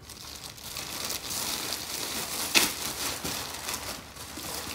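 Plastic packaging crinkling and rustling as it is handled, with one sharper crackle about two and a half seconds in.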